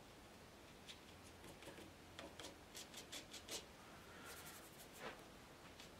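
Faint dabbing and scratching of a fine watercolour brush on paper as dark marks are worked into a tree: a string of short, quick strokes, most of them through the middle.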